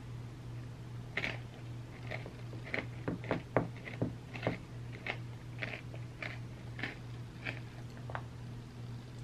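Close-up eating sounds: a metal spoon scraping and clinking in a glass bowl of ice cream sundae, with chewing and mouth clicks. A string of short, sharp clicks is busiest a few seconds in, over a steady low hum.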